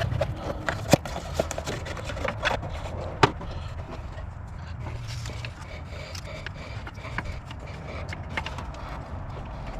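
Hands and tools fitting a new intake manifold runner control valve in a car engine bay: scattered clicks, rubbing and scrapes, with two sharp knocks about a second and about three seconds in, over a low steady hum.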